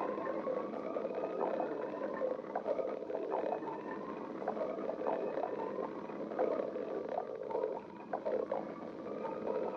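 Hungry human stomach growling: steady gurgling with many short gurgles throughout, over a faint drawn-out tone that slowly rises in pitch.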